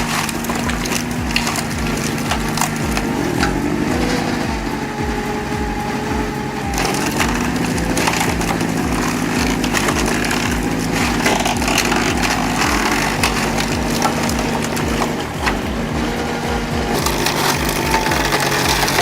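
An engine-driven log splitter running steadily with a fast low pulsing beat, while wood creaks and cracks sharply as logs are split apart.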